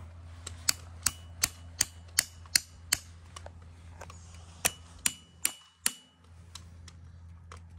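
Hammer striking a steel angle piton set in a drilled hole in rock: sharp metallic blows about three a second, in two runs with a pause of about a second and a half between them. The piton is being knocked loose and has begun to move.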